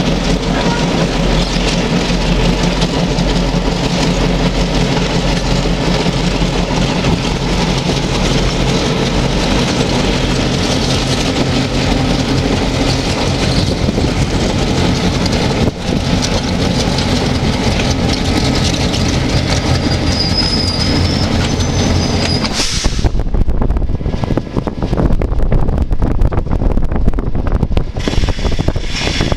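Two diesel road-switcher locomotives running steadily as they move a string of freight cars slowly around a curve, the cars rolling over the rails. A brief high squeal from the wheels comes about two-thirds through.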